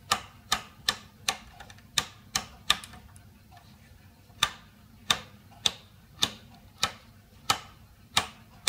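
Rotary time-base selector switch of a Soviet C1-118 analog oscilloscope turned step by step through its ranges: a series of sharp detent clicks, about two a second, with a pause of about a second and a half partway through.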